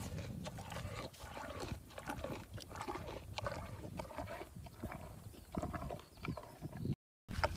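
Hippopotamuses in a pool, a steady run of short, irregular animal noises and clicks.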